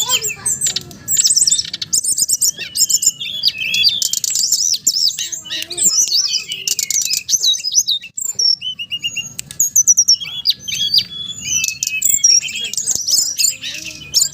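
Songbird song for luring an SRDC (sikatan rimba dada coklat, brown-chested jungle flycatcher): a dense, continuous run of fast chirps, trills and sweeping whistles, played as a lure to make the bird start singing.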